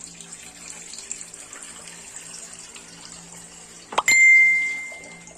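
Water running faintly into a metal casserole pot used as a bottle sterilizer. About four seconds in, a sharp metallic clank on the pot rings out in a clear high tone that fades over about a second.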